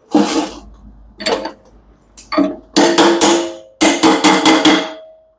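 Hammer blows on the spider arms of a Samsung front-load washer's stainless inner drum, tapping a new spider and shaft into place. About a dozen sharp metallic strikes, first singly and then in quick runs of four or five near the middle and end; each one leaves the drum ringing briefly.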